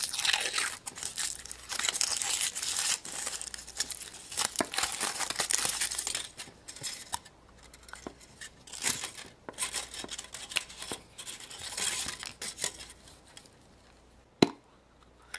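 Foil wrapper of a chocolate surprise egg crinkling and tearing as it is peeled off, followed by scattered cracks and clicks as the chocolate shell is broken and the plastic toy capsule handled, with one sharp click near the end.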